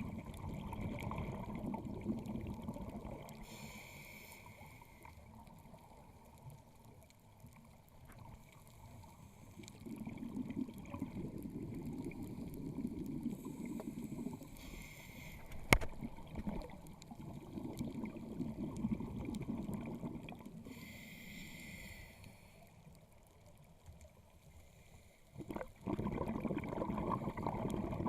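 Scuba diver breathing through a regulator underwater: long bubbly rumbling exhalations alternating with short hissing inhalations, a breath cycle every several seconds. One sharp click about halfway through.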